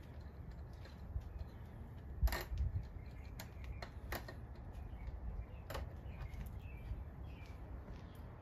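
Irregular small metallic clicks and taps of a hand wrench working on motorcycle fasteners, with one sharper tap about two seconds in, over a low steady rumble.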